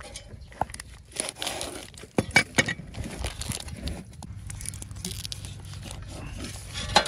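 Plastic film crinkling and tearing as it is cut and peeled off a block of beef-tallow hotpot soup base, with a few sharp clicks of the knife and cleaver against the wooden chopping board, the loudest about two and a half seconds in and just before the end.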